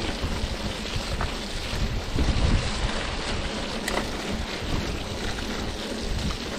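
Mountain bike rolling along a wet, muddy forest track, its tyres running through mud and puddles, with wind buffeting the microphone in uneven gusts.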